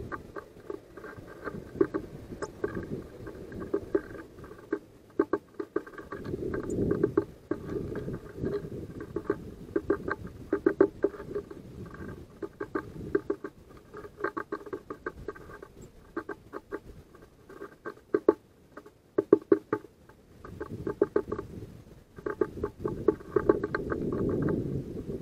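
Great tit hammering a seed held under its foot against the wooden feeder tray: runs of quick pecking taps with short pauses between them.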